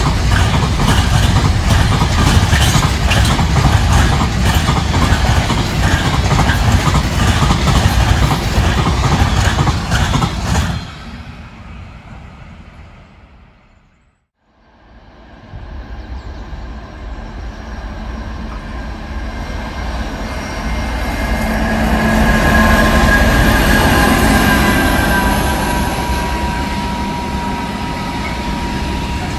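Freight train wagons rolling past on the track with a dense rhythmic wheel clatter, fading out about halfway through. A second freight train then rises in, rolling past with a thin, steady wheel squeal in its later part.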